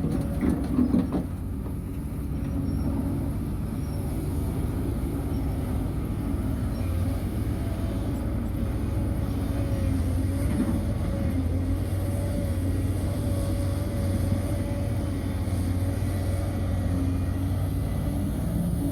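Diesel engine of earthmoving machinery running steadily, with a few sharp clanks in the first second.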